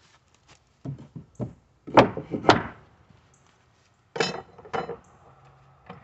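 Knocks and strikes on wooden boards: a few light knocks about a second in, two loud sharp strikes half a second apart at about two seconds, then two more a little after four seconds.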